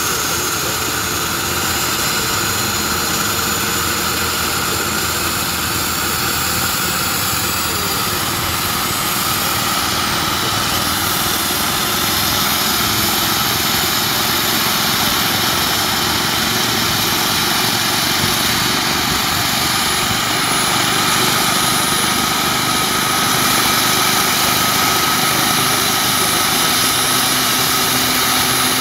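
Large-scale radio-controlled Flying Bulls AH-1 Super Cobra model helicopter spooling up on the ground for its start: a steady jet-like whine over a rushing hiss. It grows slightly louder as the rotors begin to turn.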